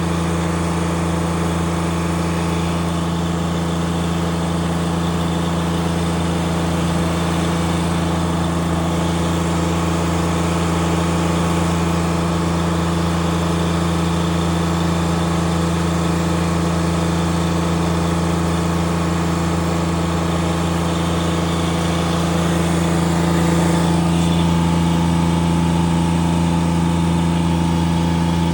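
Polaris utility vehicle's engine idling steadily, with an even hum and no change in speed.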